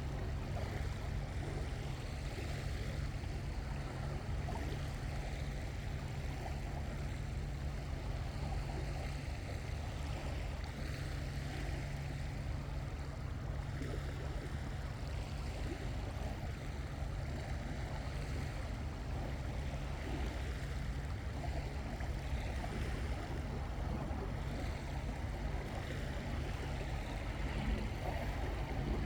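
Steady seaside noise of waves washing on the shore with wind rumbling on the microphone, unbroken throughout.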